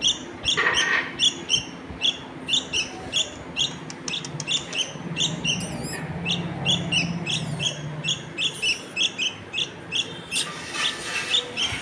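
Bulbul chick giving short, high begging chirps, about three a second without a break, gaping to be fed.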